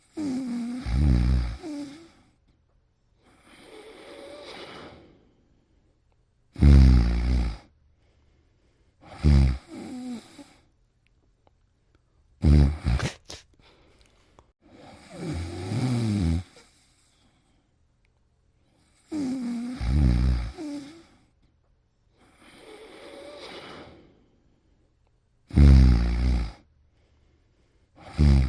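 Snoring: about ten snoring breaths, each one to two seconds long with quiet pauses between, some loud and some much softer.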